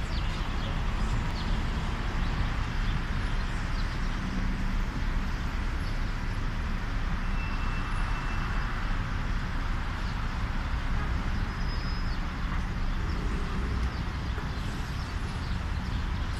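Steady city traffic noise: a continuous rumble of cars and buses, with a few faint high tones around the middle.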